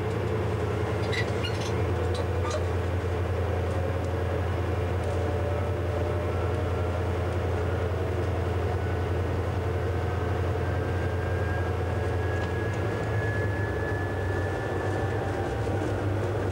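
Steady low drone of a DSB MK shunting locomotive's diesel engine, heard from inside the cab as it rolls through the yard. A few faint ticks come in the first seconds, and a faint whine slowly rises in pitch through the second half.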